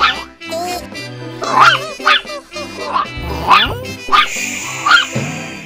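Puppy barking, about six short, high yapping barks, over background music.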